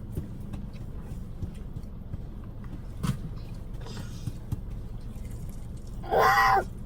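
Wet smacking and chewing sounds of people eating hot wings, small scattered clicks over a steady low hum. Near the end comes one short, loud vocal sound.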